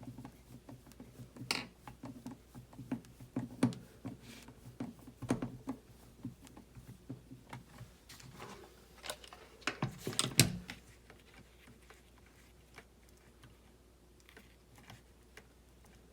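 Small plastic and metal kit parts being handled and fitted together by hand: irregular light clicks, taps and knocks, with a louder cluster of knocks about ten seconds in, then only a few faint ticks.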